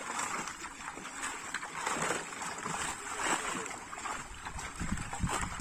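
Water splashing and sloshing as a netful of live fish thrash at the surface and hands work through them, in irregular bursts.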